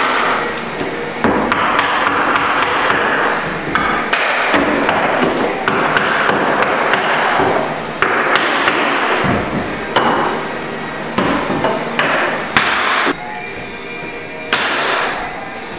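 Hammer knocking a wooden tapping block against oak tongue-and-groove floorboards to drive them tight, repeated sharp knocks, with background music. Near the end a pneumatic flooring nailer fires with a short burst of air.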